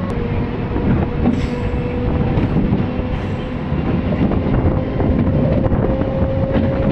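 MEMU electric train running along the track: a dense, steady rumble with a thin whine that rises slightly in pitch.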